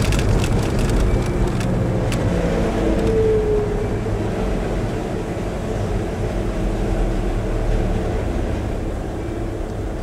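Car engine and road noise heard from inside the cabin while driving slowly, a steady low rumble. A few sharp clicks in the first two seconds and a short falling tone about three seconds in.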